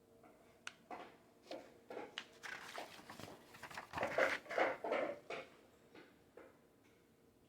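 Paper rustling and flapping with small knocks as the pages of a lathe manual are handled and turned, in an irregular run that is busiest about four to five seconds in.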